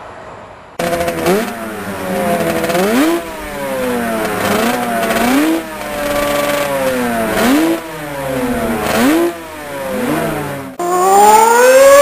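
Motorcycle engine revving again and again, each rev climbing quickly and sinking slowly back. Near the end it cuts to a racing motorcycle revving hard and loud, its pitch rising steeply.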